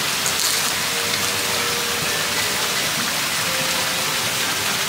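Steady rushing of falling water, an even hiss that does not change.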